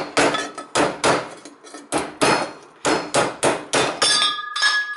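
Heavy hammer repeatedly striking a steel exhaust pipe clamped in a bench vise, about two to three blows a second, beating the pipe ends flat so they fit together. Near the end the pipe pieces come loose from the vise with a ringing metal clang.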